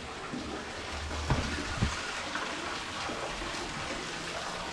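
Steady trickling and running of water echoing in the stone stock tunnel, with two short knocks about a second and a half in.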